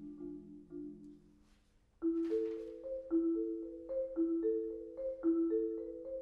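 Marimba and trombone duet. A low held note fades out under decaying marimba notes, and after a brief pause about two seconds in, the marimba starts a repeating figure in an even rhythm.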